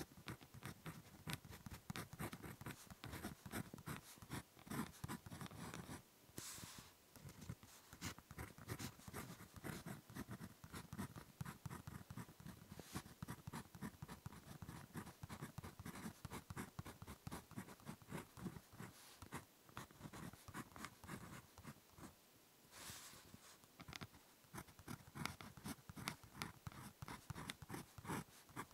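Ballpoint pen writing on paper, close-miked: quick scratchy strokes in a dense run, with brief pauses twice, about six seconds in and again past twenty seconds.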